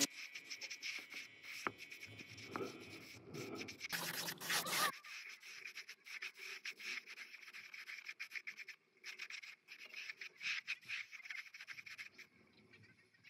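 Rapid, irregular rubbing and scraping strokes on a surface, heavier for the first few seconds and then lighter and sparser.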